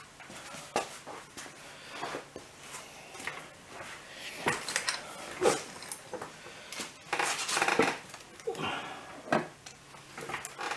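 Irregular metallic clinks and light knocks of hands and tools working on a motorcycle seat's mounting, busiest around seven to eight seconds in.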